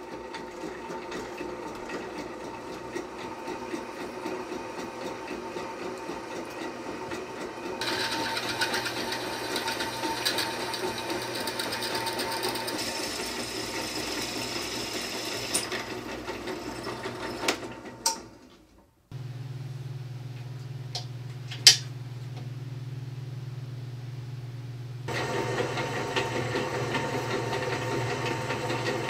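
Drill press motor running steadily as a twist bit cuts through steel plate, the cutting growing louder about a quarter of the way in. After a brief break the motor hums more quietly, then the cutting picks up again near the end, with a single sharp click in between.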